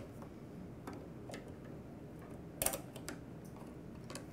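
Pliers clicking against a lawnmower carburetor's fuel line clamp as it is worked off: a few light, scattered metal clicks, the loudest a short cluster about two and a half seconds in, over faint room hiss.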